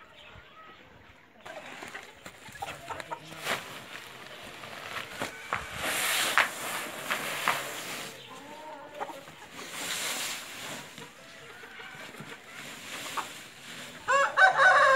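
A chicken gives a loud call near the end, over the rustle and scrape of a sack being handled and husk bedding being poured onto a concrete floor.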